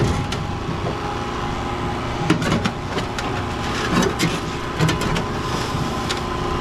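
Steady engine-like hum of a machine running, likely the hydraulic pump driving a Hurst rescue tool, with several sharp metallic clanks and knocks of parts being handled.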